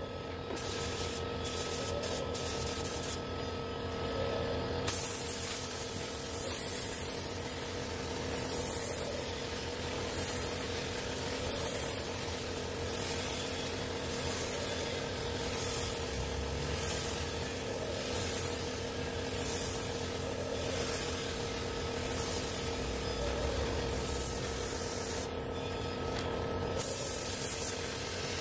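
Gravity-feed paint spray gun hissing with compressed air. The hiss comes in a few short bursts at first, then swells and fades about once every second or so as the gun sweeps back and forth in passes. A steady hum runs underneath.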